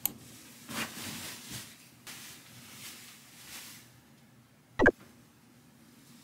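Soft rustling and movement sounds of a person stepping up beside a bed, then a single sharp thump about five seconds in, the loudest sound.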